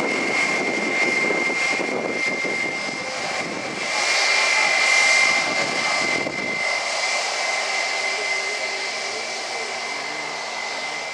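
British Airways Airbus A319 taxiing, its jet engines running at low thrust with a steady high whine over a rushing hiss. The low rumble underneath drops away about six and a half seconds in.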